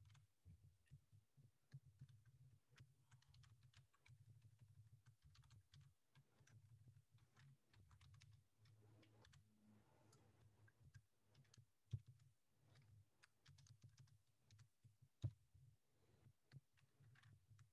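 Faint typing on a computer keyboard: scattered quiet keystrokes, with a couple of louder single key clicks about twelve and fifteen seconds in.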